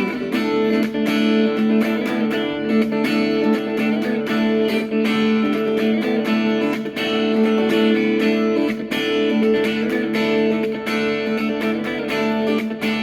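Instrumental music led by guitar: quickly picked notes over held, ringing chords.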